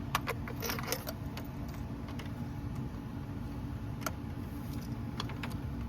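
Hand ratchet clicking while tightening spark plugs: a cluster of sharp metallic clicks in the first second, then a few scattered clicks, over a steady low hum.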